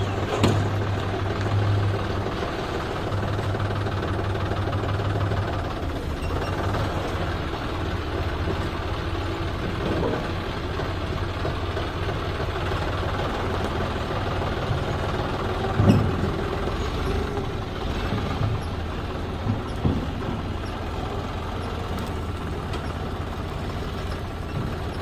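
John Deere 5050E tractor's three-cylinder diesel engine running steadily while pulling a loaded trailer slowly along a dirt track. A sharp clank about two-thirds of the way through, with a couple of smaller knocks after it.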